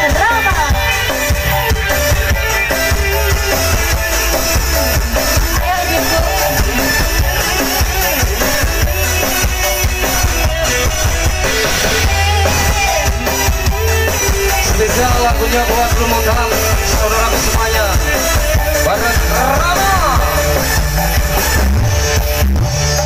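Live dangdut band music played very loud through tall outdoor speaker stacks: heavy bass and drums under a singing voice.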